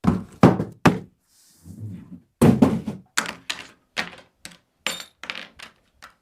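An irregular series of thuds and knocks, the sound of the soundbar's box and packed parts being handled during unboxing.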